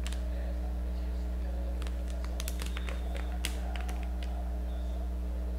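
Steady low electrical hum, with a few light clicks and taps as a low-profile ATI Radeon HD 2400 Pro video card and its packaging are handled.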